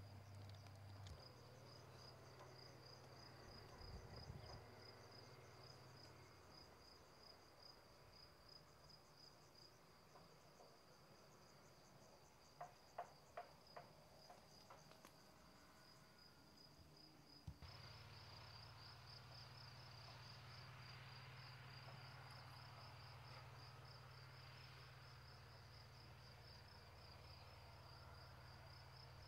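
Faint, steady trilling of insects: a high, rapidly pulsing chirr that goes on without a break, with a few soft clicks about halfway through.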